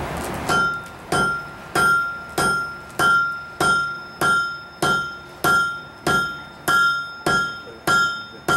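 Blacksmith's hand hammer striking a red-hot bar on an anvil in a steady rhythm, about one and a half blows a second, each blow followed by a short clear ring from the anvil. The blows are drawing out the stem of a forged rose.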